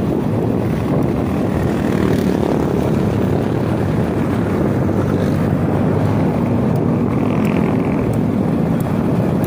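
Steady wind rush on the microphone mixed with the engine drone of a Suzuki Smash 115 underbone motorcycle riding at speed.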